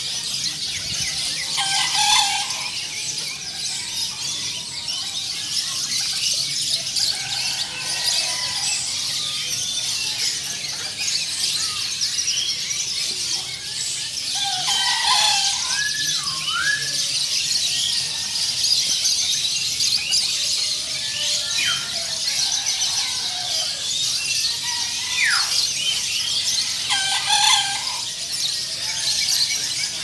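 Chorus of many caged songbirds singing and twittering at once: a dense, high, continuous chatter. A few louder whistled calls, gliding up and down in pitch, stand out now and then.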